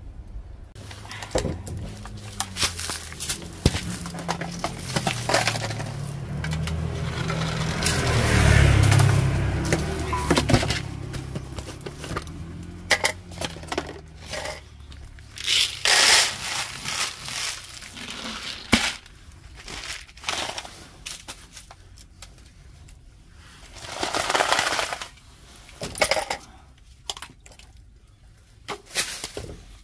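Rustling, crackling and clattering handling noises with many scattered clicks, plus a low drone that shifts in pitch through the first twelve seconds or so and is loudest about eight to ten seconds in. Louder noisy rushes come about halfway through and again about three-quarters of the way through.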